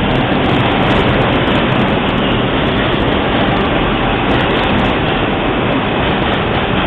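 New York City subway train running, a loud steady rumble and rail noise.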